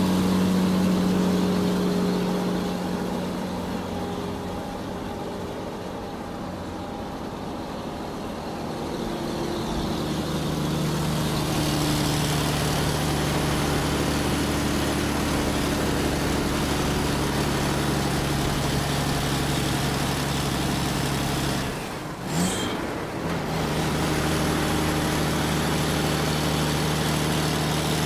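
Excavator's diesel engine running steadily, easing down and then rising again in level with a shift in engine note partway through. Near the end there is a brief drop-out with a single short knock.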